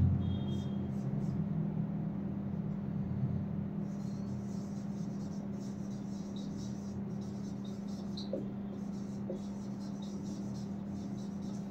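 Marker pen writing on a whiteboard: faint, short strokes and squeaks over a steady low electrical hum.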